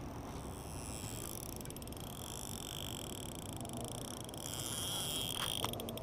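A chorus of frogs calling, high trilling calls that grow louder about halfway through.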